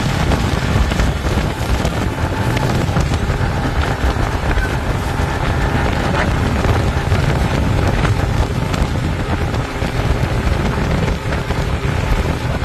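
Wind buffeting the microphone on a moving motorboat, over a steady rush of engine and water.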